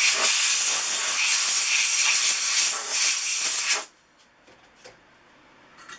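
Compressed-air blow gun hissing in one steady blast for about four seconds, then cutting off sharply. It is blowing isopropyl alcohol off a freshly heat-set brass insert to cool it.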